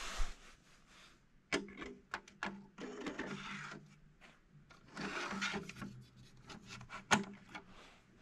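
Plastic drive tray carrying a 3.5-inch hard drive sliding into a bay of a metal RAID enclosure: several sharp clicks and two spells of scraping as the tray rubs along the bay rails and its latch lever is worked.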